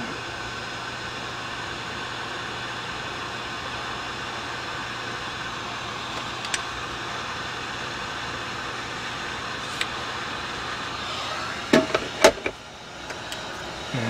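Hot air rework gun blowing steadily as it shrinks heat shrink tubing over a T-tap wire connection. A few clicks and knocks come near the end, and the blowing drops away about twelve and a half seconds in.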